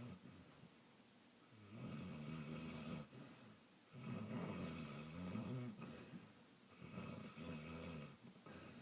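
A sleeping Saint Bernard snoring: three long snores, each lasting about a second and a half, with short pauses between them.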